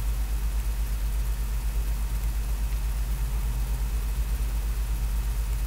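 Steady low hum with a faint hiss, the background noise of the recording setup, unchanged throughout; no other sound stands out.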